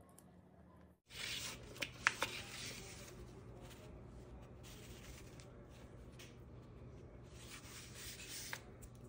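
Paper baking liner rustling and crinkling as it is picked up and handled, with a few sharp light clicks. A steady low hum runs underneath.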